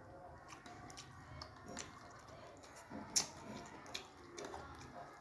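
Close-up mouth sounds of eating fried instant noodles: soft wet chewing clicks as strands are drawn in, with one sharper click about three seconds in.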